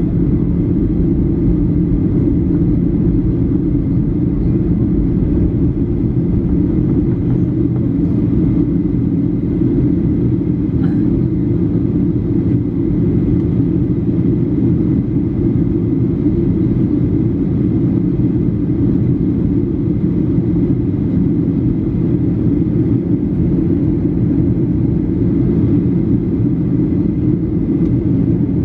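Steady cabin noise inside a Boeing 737 descending to land: the low drone of the engines and the rush of air past the fuselage, with a faint steady high tone above it.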